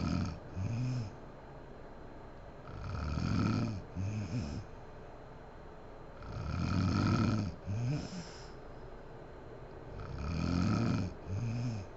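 A sleeping woman snoring in a steady rhythm: three long snores about every three and a half seconds, each followed by a shorter, wavering sound on the breath out.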